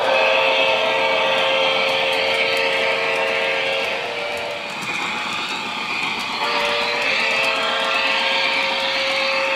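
Model steam locomotive's sound system blowing two long chime-whistle blasts, the first starting at once and ending about four seconds in, the second starting a couple of seconds later, over the steady rolling noise of the train on the track.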